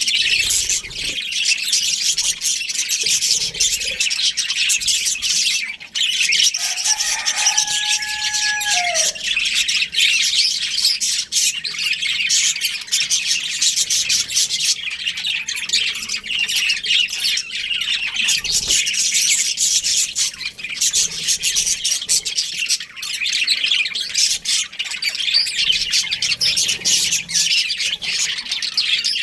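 A pair of budgerigars chattering and chirping without a break in rapid high notes. About seven seconds in, a lower drawn-out whistle drops off at its end.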